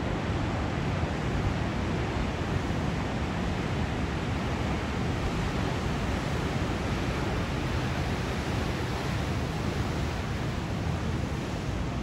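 Steady rush of ocean surf breaking into whitewater, mixed with wind.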